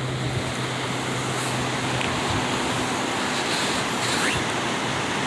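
Steady rush of flowing water, an even hiss with no rhythm. A low steady hum under it stops about two seconds in.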